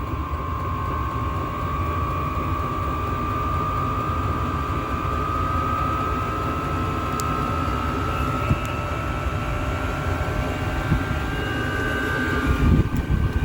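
Hcalory diesel air heater winding up to its maximum fan speed and fuel flow: a whine that rises slowly and steadily in pitch over a steady low rumble.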